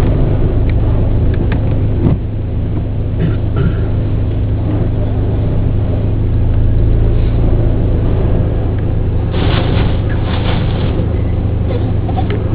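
Car engine idling with a steady low hum and rumble, heard from inside the car. A brief rush of noise comes about nine and a half seconds in.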